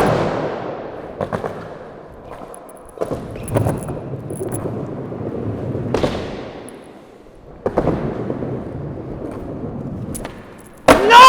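Skateboard clacks: sharp hits of the board popping and landing, several seconds apart, with the wheels rolling between them. Near the end a person gives a loud shout that falls in pitch.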